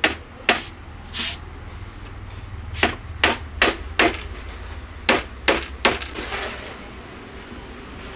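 Hammer blows on a wooden subwoofer box panel, about ten sharp strikes in quick groups of three or four, as the panel is nailed in place.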